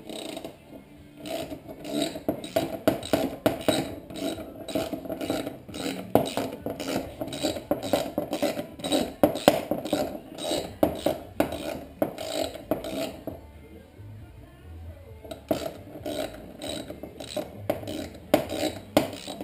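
Hand ratchet wrench clicking as it is swung back and forth on a bolt of a dismantled engine, in runs of sharp clicks with a short pause about two-thirds through.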